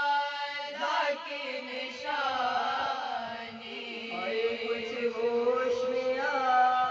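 A group of women chanting a marsiya, an Urdu lament, unaccompanied, with one voice leading at the microphone and the others joining in. The voices hold long notes that bend and slide in pitch.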